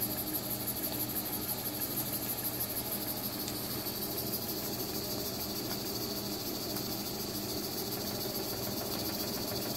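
Stuart Turner S50 model mill steam engine running steadily on steam, with a fast, even beat from the engine over a steady steam hiss.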